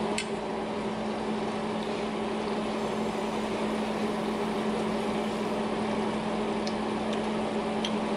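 Steady hum of a kitchen motor or fan with an even hiss, holding one constant tone. A few faint light clicks of a spoon against a saucepan.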